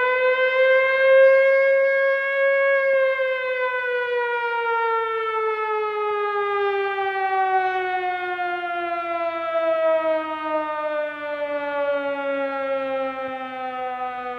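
Air-raid siren wailing: one long tone that holds at its peak pitch for about three seconds, then slowly winds down in pitch.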